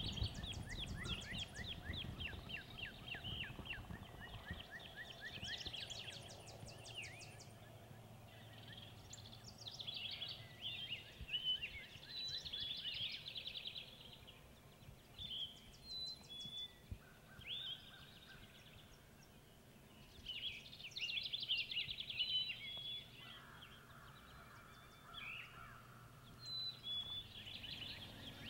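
Several wild birds singing together, overlapping trills and short chirps that come in bursts every few seconds.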